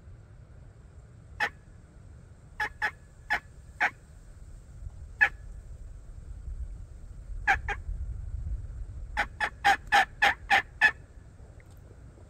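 Hen-style yelps on a hand-worked turkey call: loud, short, sharp notes in small groups, ending in an evenly spaced run of seven at about three a second.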